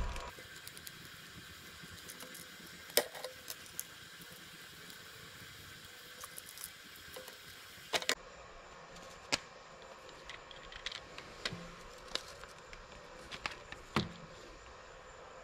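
Hard plastic RC truck parts and a screwdriver being handled by hand: scattered light clicks and taps, with a few sharper knocks about three, eight, nine and fourteen seconds in.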